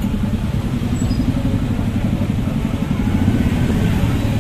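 Street traffic of motor scooters and cars in a slow queue close by: a steady low engine rumble.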